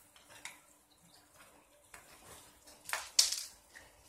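Small clicks and scrapes of a screwdriver working on the screws of an RC car's plastic rear plate, with one louder, brief scraping noise about three seconds in.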